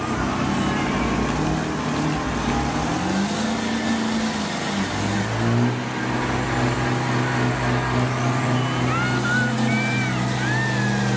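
High-horsepower truck engines running flat out under load, tires spinning on concrete; the engine pitch wavers, then holds steady and high from about halfway, over a continuous haze of tire and engine noise. A few short gliding squeals come near the end.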